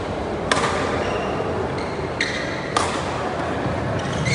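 A badminton rally: sharp racket strikes on the shuttlecock about half a second in and near three seconds, with short, high shoe squeaks on the court floor, over the steady background noise of a large sports hall.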